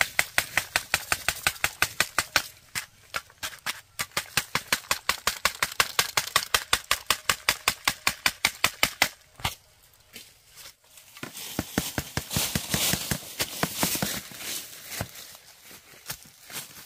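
A rapid, even run of sharp knocks, about five a second, for about nine seconds. After a short pause comes a rustling crackle, then a few scattered knocks.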